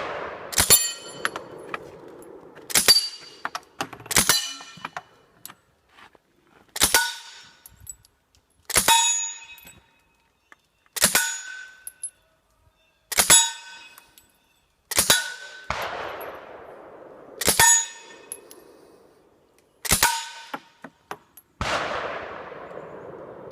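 Suppressed M3 grease gun firing single shots about every two seconds, each one followed by the ring of the bullet striking a steel target. About a dozen shot-and-ring strikes in all.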